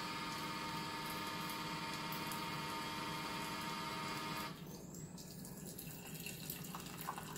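Keurig K-Compact single-serve brewer running a cleansing brew of plain hot water, its pump humming steadily as water streams into a ceramic mug. About four and a half seconds in the hum cuts out abruptly, leaving only water trickling and dripping into the mug.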